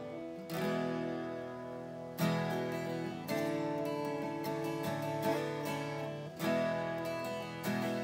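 Seagull Coastline Cedar S12 twelve-string acoustic guitar with a solid cedar top, strummed: full chords struck every second or two and left to ring.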